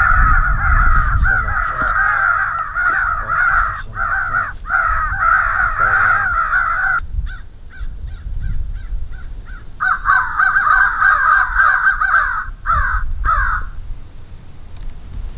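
FoxPro electronic caller playing a recorded crow fight: many crows cawing over one another in a loud, dense chorus that cuts off abruptly about seven seconds in, then starts again about ten seconds in for several seconds more.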